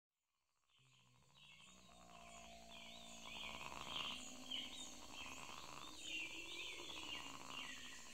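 Tropical forest ambience fading in from silence: birds chirping and calling over and over over a steady hum of insects, with low steady drone tones underneath for the first few seconds.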